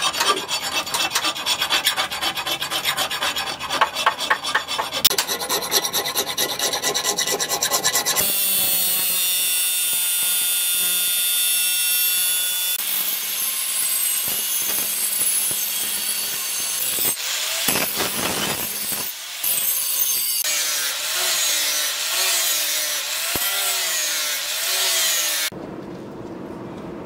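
A hand file rasping in quick, even strokes across the edge of a steel cleaver blade cut from a plough disc. Then an angle grinder runs and grinds the steel, its whine wavering up and down as the disc is pressed into the blade. Near the end this drops to a quieter steady noise.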